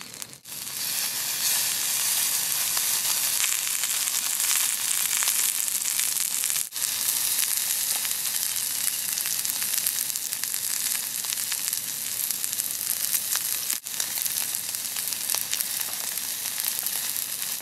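Beef and vegetables sizzling steadily in a frying pan on a single-burner camping gas stove. The sizzle breaks off for an instant twice.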